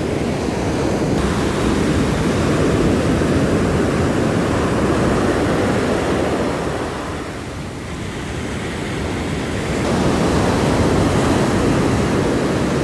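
Ocean surf breaking and washing up a sandy beach, a steady rushing wash with wind on the microphone; it eases a little past the middle, then swells again as the next waves come in.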